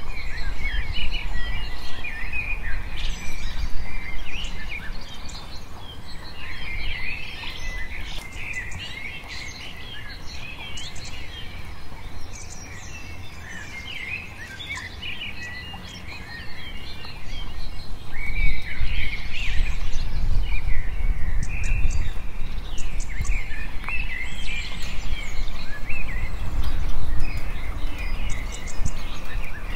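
Several small birds chirping and calling, many short overlapping chirps and trills, over a low rumble that grows louder about two-thirds of the way through.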